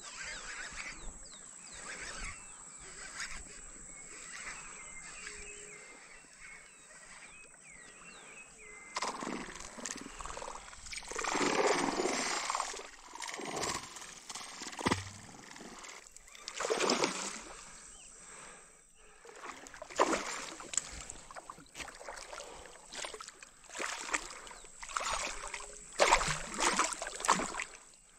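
A hooked traíra (trahira) thrashing and splashing in shallow, weedy water as it is pulled to the bank. After a quieter start there are repeated loud splashes, several seconds apart.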